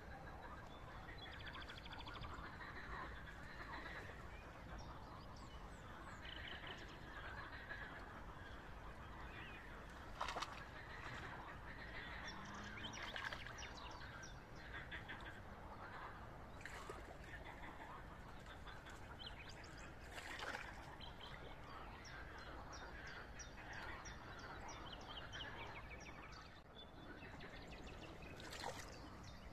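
Faint pond-side ambience of birds calling and chirping throughout, with a few short sharp sounds standing out now and then.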